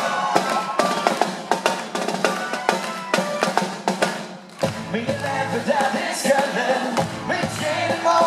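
Live rock band music: a marching snare drum is beaten with sticks in a fast rhythm, with voices singing. About halfway through, the bass and the rest of the band come in.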